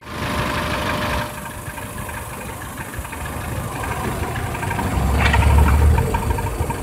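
Peugeot 307 four-cylinder engine idling, heard close up in the engine bay, with a stronger low rumble swelling about five seconds in. The car is in for an abnormal engine noise and vibration.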